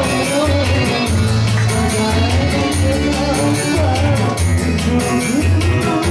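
Music: a song with a wavering sung melody over a pulsing bass line and a steady drum beat.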